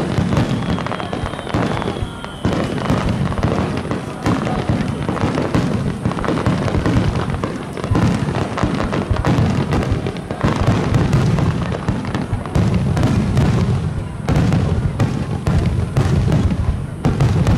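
Large aerial fireworks display going off in a dense barrage: overlapping booms and crackling bursts with a continuous low rumble and no break, and a faint falling whistle in the first couple of seconds.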